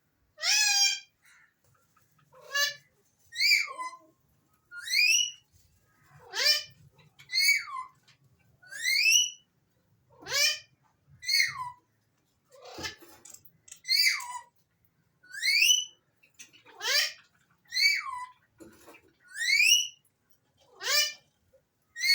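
Alexandrine parakeet whistling: a series of short, clear whistles, about one every second and a half, some rising and some falling in pitch.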